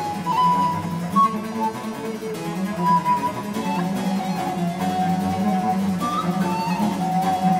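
Instrumental background music: a melody of held notes over a steady low accompaniment.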